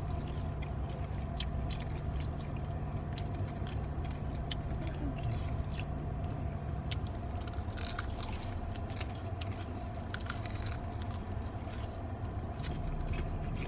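Chewing and scattered crunchy mouth clicks from eating fried chicken wings inside a car, over the car's steady low hum.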